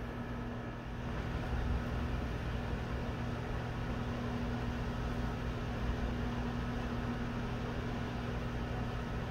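Steady low machine hum with an even hiss under it, the continuous background drone of a room appliance.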